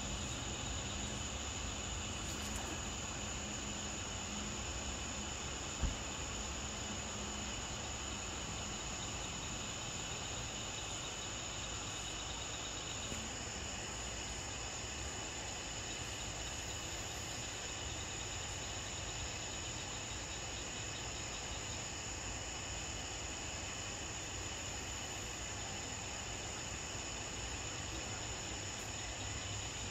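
Steady chorus of night insects chirring in several high bands throughout, with one short thump about six seconds in.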